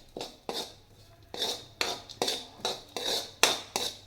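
A spatula stirring and scraping around a kadhai as crushed almonds and coconut are sautéed in ghee, in an even rhythm of about two to three scrapes a second.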